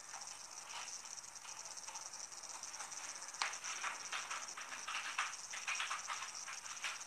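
Faint, steady, high-pitched insect chirring. From about three and a half seconds in, irregular soft crackles join it.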